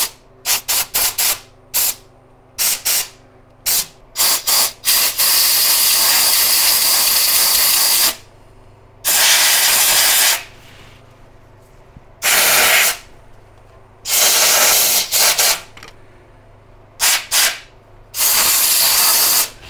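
Compressed air from an air hose blowing out grime around the spark plugs. It starts as a quick run of short puffs, then gives several longer blasts of one to three seconds with pauses between.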